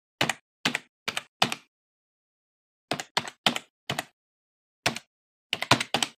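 Computer keyboard keystrokes typing out a word, one click per letter in uneven runs: four clicks, a pause, four more, a single one, then a quick run of about four near the end.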